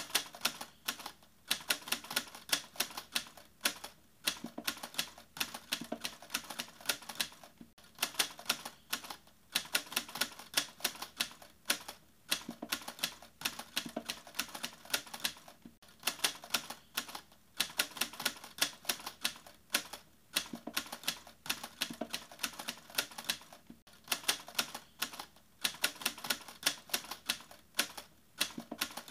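Fast, dense clicking, like keys being struck, in bursts of about two seconds with brief gaps between them, repeating evenly.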